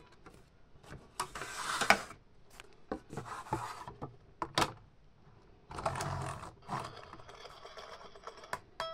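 Hard plastic toy track pieces being handled and slid across a table, with two longer scraping rubs and several sharp plastic clicks as the pieces are fitted together and the toy giraffe is set down.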